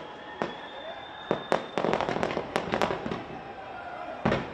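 Aerial fireworks display: a quick irregular string of sharp bangs and cracks from bursting shells, with a thin high whistle during the first two seconds and a heavier, deeper bang near the end.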